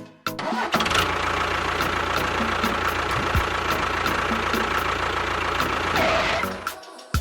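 An engine running steadily for about six seconds. It starts abruptly and dies away shortly before the end.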